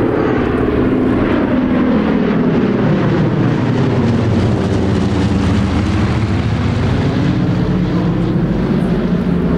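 Radial engines of a low formation flypast, two Harvards' nine-cylinder radials and a DC-3 Dakota's twin radials, droning together, the note sinking in pitch as the aircraft pass overhead. This is the classic sound of old radial engines.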